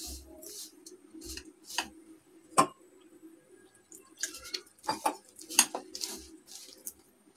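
Hand mixing flour and water into dough in a ceramic bowl: metal bangles clink irregularly against the bowl, with scraping and rustling of fingers through the flour. One sharp clink about two and a half seconds in is the loudest.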